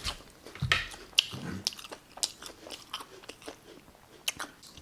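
Close-up mouth sounds of someone biting and chewing a crispy fried Korean corn dog: irregular crunches, thicker in the first couple of seconds and thinning out toward the end.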